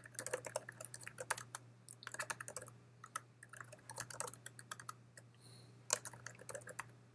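Typing on a computer keyboard in quick bursts of key clicks, with a short pause about five seconds in. A faint steady low hum runs underneath.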